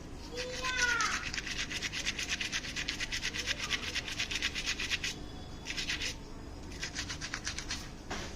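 Rapid back-and-forth scrubbing with a brush, about ten strokes a second, for about five seconds, then two shorter spells near the end. A brief rising, pitched call sounds about half a second in.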